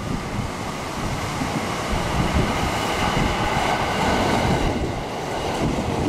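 JR 211 series electric multiple unit running through the station at speed without stopping, its rushing wheel-and-rail noise building to a peak as the cars draw level. Gusty wind buffets the microphone underneath.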